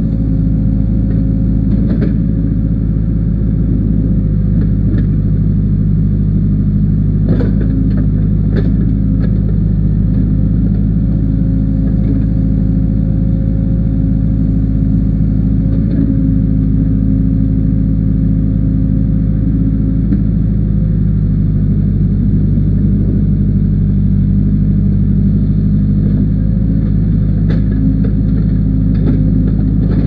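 Case backhoe loader's diesel engine running steadily as the backhoe digs, with a few sharp clanks scattered through.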